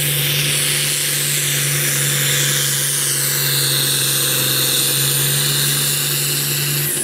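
Red International Harvester tractor's turbocharged diesel at full throttle, pulling the weight-transfer sled: a steady, loud engine note with a high whistle above it, cutting back right at the end.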